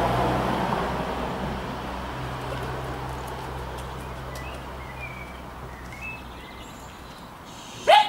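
A vehicle engine's low, steady hum fading away over several seconds, with a few faint bird chirps midway. Just before the end comes one short, sharp yelp that rises in pitch, from the small dog.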